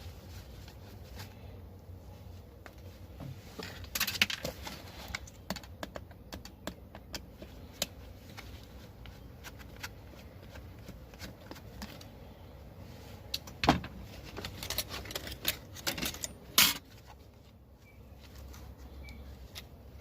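Tools and small metal parts being handled: scattered clinks, rattles and knocks, with the sharpest about four seconds in and twice in the last few seconds, over a low hum.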